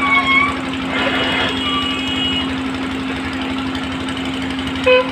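Steady machine hum holding one constant low tone. Near the end a vehicle horn honks.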